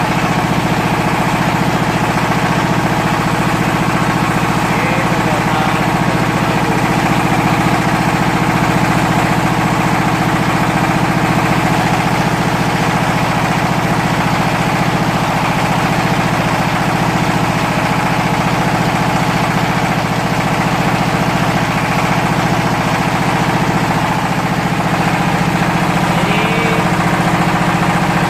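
Fish-feed pellet machine running steadily: a continuous engine-like drone that holds the same speed and level throughout.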